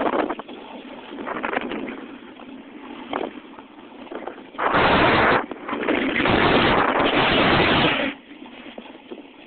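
Wind buffeting the microphone of a camera moving fast down a snowy slope, in rushing gusts, with the loudest gusts from about halfway through until near the end.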